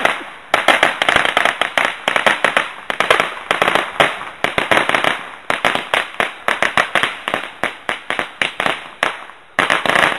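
Firecrackers going off in a rapid, irregular run of sharp cracks, with short lulls about half a second in and again near the end.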